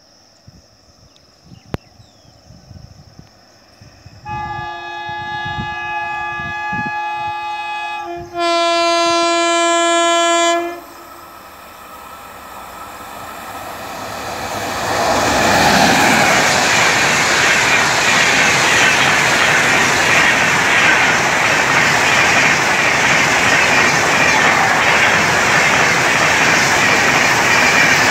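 Train horn sounding a long blast from about four seconds in, which jumps louder with a changed chord for its last two seconds and stops near eleven seconds. The train then comes on and rushes past at speed, its loud rolling roar and wheel clatter building and holding to the end.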